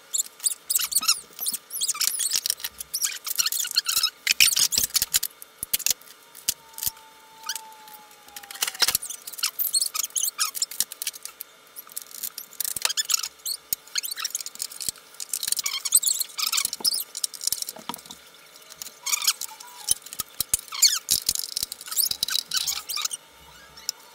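Vacuum cleaner being taken apart by hand: irregular plastic clicks, scrapes and rattles, with a few short squeaks as parts rub and come loose.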